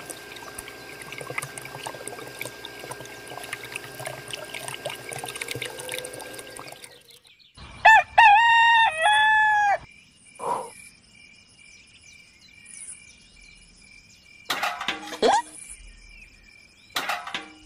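A small electric motor runs with a steady whine, stopping about seven seconds in; about eight seconds in a rooster crows once, loud, the loudest sound here. After the crow come a few light clicks and knocks.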